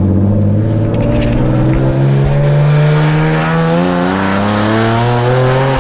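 Nissan 370Z Nismo's 3.7-litre V6 running straight-piped from the headers back, with test pipes and no mufflers or resonators. The car accelerates and the exhaust note climbs steadily in pitch, then drops suddenly at the very end.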